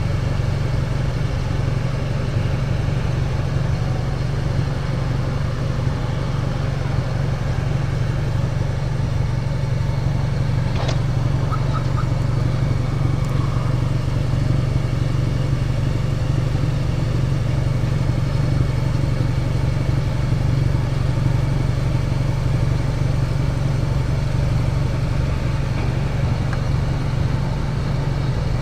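2006 Mazda 6 engine idling, a steady low hum.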